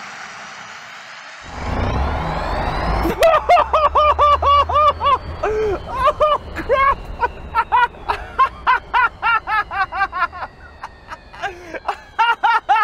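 A man laughing hard in a long run of short bursts as the roofless electric Land Rover Defender accelerates flat out, with wind buffeting the microphone under the laughter. Before the laughter starts, the electric motor gives a rising whine.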